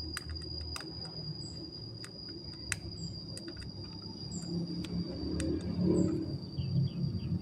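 Scattered light clicks and taps of small screws and a screwdriver on a laptop casing, over a steady high-pitched insect trill with a short high chirp about every second and a half.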